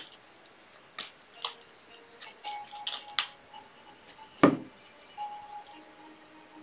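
A deck of tarot cards being handled and shuffled by hand: scattered short clicks and snaps of cards, with a louder knock of the deck against the table about four and a half seconds in.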